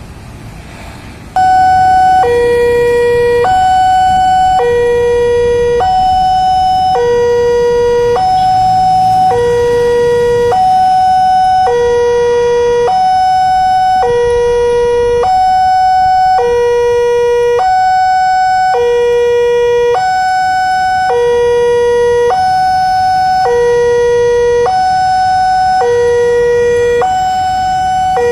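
Railway level crossing's electronic warning alarm sounding from its pole-mounted horn speaker, starting about a second and a half in. It is a steady two-tone pattern, high then low, with about one pair every one and a half seconds, signalling that a train is approaching and the barriers are closing.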